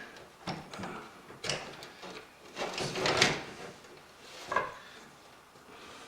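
A computer power supply being handled and slid into a PC case: a series of scrapes and knocks, the loudest about a second and a half, three seconds and four and a half seconds in.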